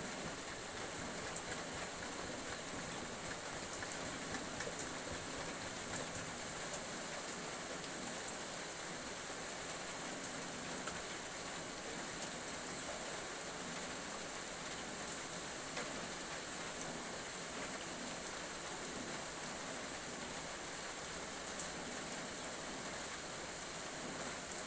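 Steady sizzling from a wok of food frying over a wood fire, with scattered small pops and crackles.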